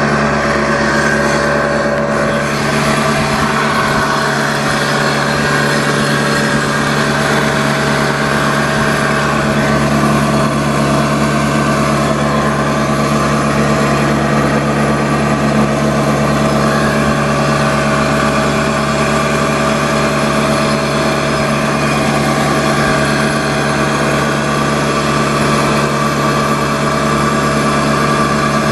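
Small boat's engine running steadily at a constant speed while under way, a continuous hum with no change in pitch.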